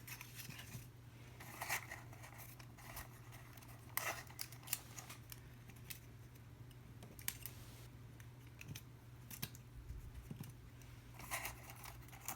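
Paper being handled and folded: scattered short rustles, creases and clicks over a low steady hum.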